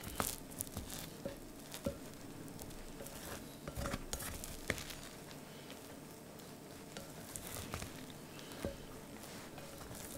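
Silicone spatula stirring and fluffing cooked basmati rice in a pot: soft scraping and rustling of the grains with scattered light taps of the spatula against the pot.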